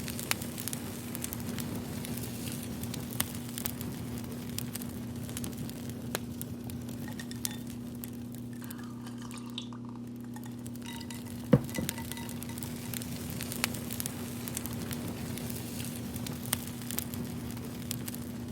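Crackling fire with frequent small sharp pops, one louder pop about eleven and a half seconds in, over a steady low hum.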